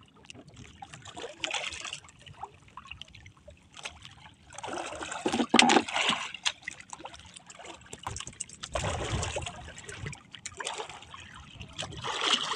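Seawater lapping and splashing against the hull of a small outrigger boat, coming in irregular swells with a few small knocks.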